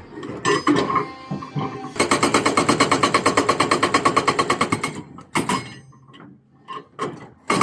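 Machinery clattering fast and evenly, about ten strikes a second. A few irregular clanks come first, the clatter sets in about two seconds in, breaks off about halfway with a single knock and a few scattered ones, and resumes at the end.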